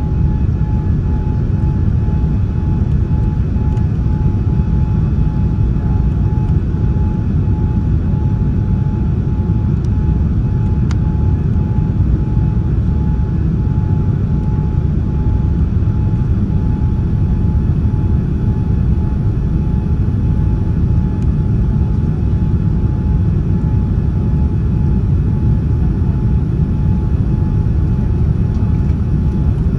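Boeing 787-9 Dreamliner cabin noise heard from a window seat: a steady, deep roar of the jet engines and airflow during the climb after take-off, with a faint steady tone sitting above it.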